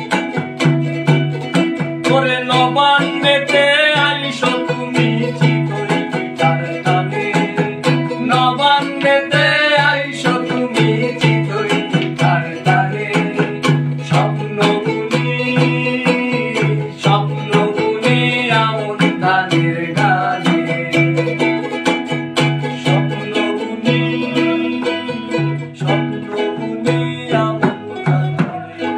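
Ukulele strummed in a steady rhythm, with a hand-held frame drum keeping the beat and a man singing a Bengali folk song in stretches. The music gets quieter near the end.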